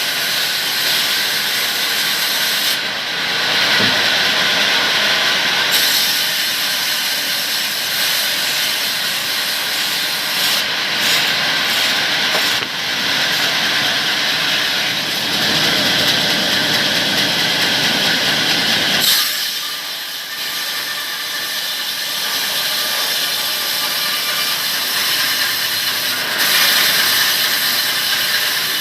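A power saw cutting through palm-tree wood: a steady, loud, hissing whir that shifts a little in level as the cut goes on.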